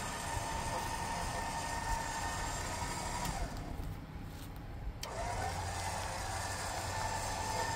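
Xbull 13500 electric winch motor whining steadily as it spools synthetic line tightly onto its drum under light load. About three seconds in the whine winds down and stops, then spins back up about two seconds later, over a low steady hum.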